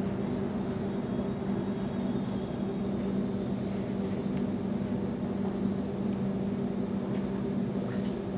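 Sydney electric suburban train moving slowly past at close range, with a steady low hum from its electrical equipment over a faint running rumble.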